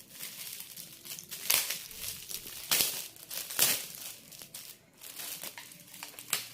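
Gift wrapping being crinkled and pulled open as a present is unwrapped: irregular rustling with a few sharper, louder crackles.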